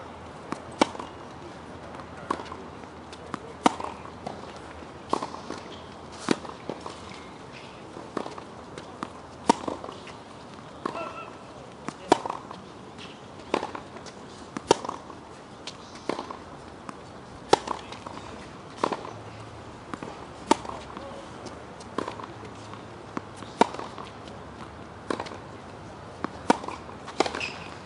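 Tennis rally: a ball struck back and forth by racket strings and bouncing on the hard court, with a loud hit about every second and a half and softer bounces between, keeping a steady rhythm throughout.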